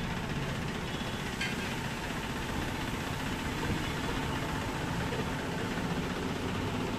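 Tractor engine idling steadily, with one short click about one and a half seconds in.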